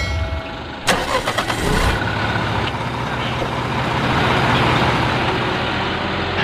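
A truck engine starting with a sharp click about a second in, then running steadily and swelling slightly toward the middle.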